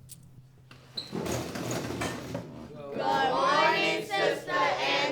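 A group of voices begins singing or chanting together about three seconds in, after a second or so of rustling noise. Faint brief clinks come near the start.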